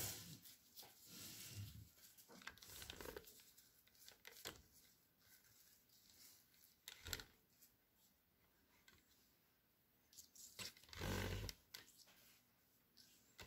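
Faint, scattered rustling and crinkling of disposable plastic gloves shaping a soft tuna and cauliflower mixture by hand, with a short, louder soft thump about eleven seconds in.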